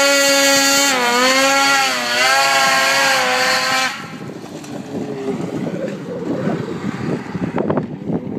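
Polaris 800 RMK snowmobile's two-stroke engine screaming at high revs as it launches and pulls away, its pitch dipping twice. About four seconds in the engine sound drops off abruptly, leaving irregular rustling and wind noise on the microphone.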